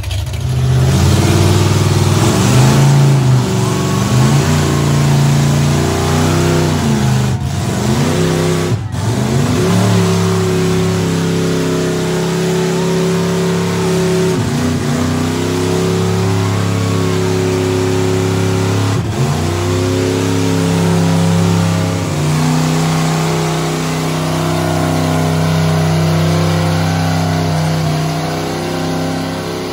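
Big truck engines running hard at high revs, loaded as the trucks pull against each other in a tug-of-war. The pitch holds for stretches, then sags and recovers several times, with a few brief sharp dips.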